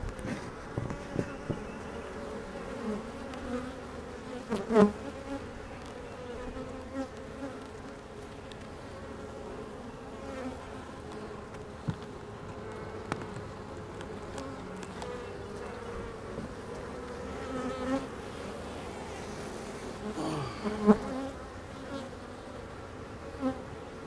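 A mass of honey bees buzzing right at the microphone: a freshly hived swarm crawling over the hive frames in a steady, dense hum. Twice, about five seconds in and a few seconds before the end, it gets briefly louder.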